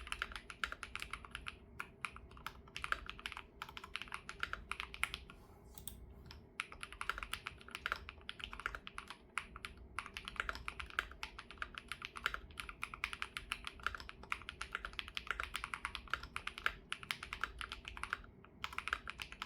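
Continuous fast typing on an ROG Azoth Extreme mechanical keyboard with Y3x switches, set to hard mode with its silicone dampening pads removed: a dense stream of crisp key clicks, with brief pauses about six seconds in and near the end.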